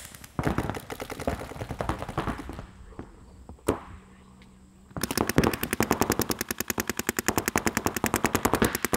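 Paintball markers firing in rapid strings. There are irregular overlapping volleys at first, a short lull broken by a single shot, then from about five seconds in a steady, very fast stream of about a dozen shots a second.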